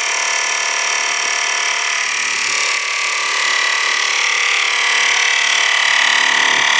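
Portable 12-volt car tire inflator (small air compressor) running steadily and loudly, pumping air into a car tire.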